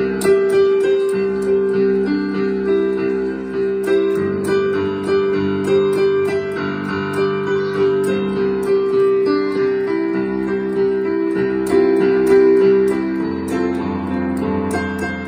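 Instrumental piano music, with notes sounding over long held tones.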